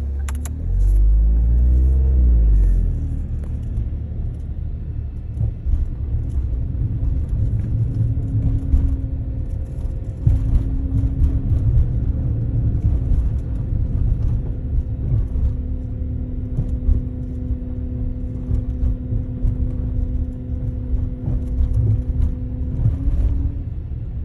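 Car running with a low rumble, stronger for the first few seconds, and a steady hum from about six seconds in until near the end: an abnormal noise from the rear of the car along with the air-conditioner motor.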